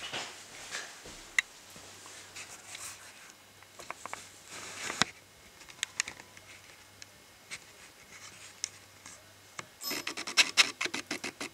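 Handling noises: rubbing and scratching with scattered sharp clicks, then near the end a fast run of clicks, several a second.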